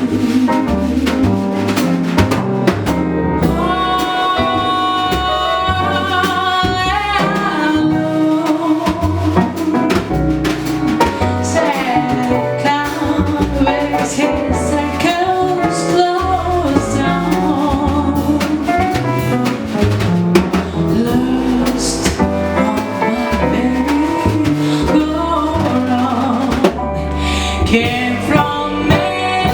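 Live jazz quintet playing: drum kit and double bass keep time under keyboard chords, while a lead melody holds long notes with vibrato over them.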